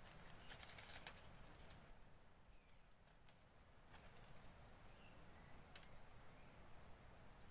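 Quiet forest ambience: a steady high-pitched insect hum, a few faint bird chirps, and several sharp clicks of twigs and branches being handled, the loudest about a second in.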